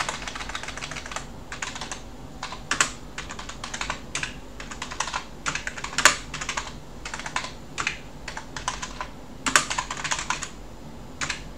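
Typing on a computer keyboard: an irregular run of key clicks, a few of them louder than the rest.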